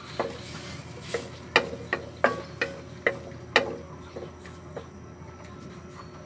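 Wooden spatula stirring vegetables in a watery sauce in a metal wok, knocking against the pan's side about ten times at an uneven pace, then going quiet about five seconds in.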